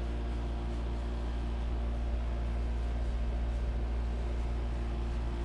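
Steady low machine hum with a constant pitch, unchanging throughout.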